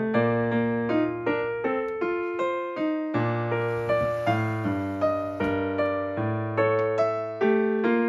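Background piano music: a gentle melody of evenly paced notes, each fading after it is struck.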